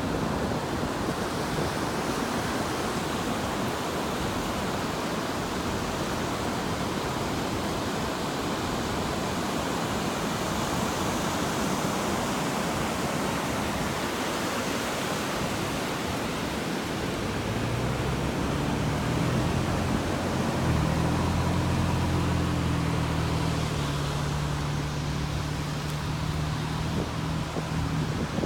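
Steady rush of wind on the microphone over ocean surf breaking on the beach. About two-thirds of the way through, a low steady drone joins in and holds.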